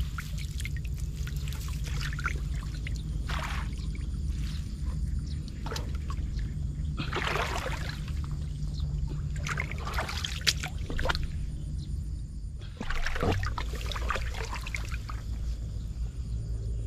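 Water splashing and trickling as a wire-mesh fish trap is handled and set in shallow water, in several bursts of a second or two, over a steady low rumble.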